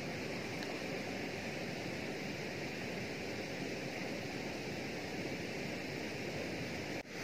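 Steady rush of flowing water at a dam, an even, unchanging hiss that breaks off briefly near the end.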